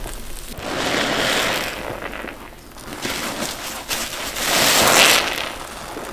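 Wet block sponges being squeezed, a crackling, squelching rush of water and foam that swells twice, about a second in and again near the end.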